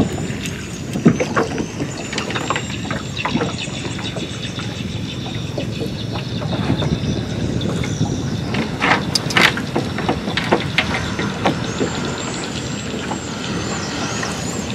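Nylon cast net being handled by hand as small fish are picked out of the mesh, with scattered sharp clicks and ticks, the loudest about a second in and around nine seconds in, over a steady low rumble.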